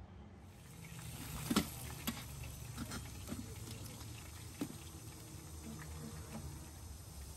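Light, scattered clicks and taps of a fork against a metal serving tray as pieces of fried fish are moved, over a low steady hum; the sharpest click comes about one and a half seconds in.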